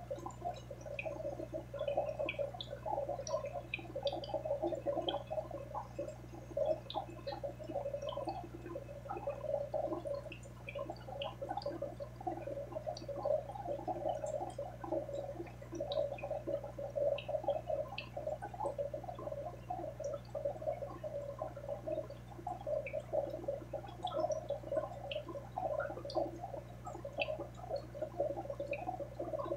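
Aquarium water bubbling and gurgling steadily, with scattered small drip-like pops and a constant low hum underneath.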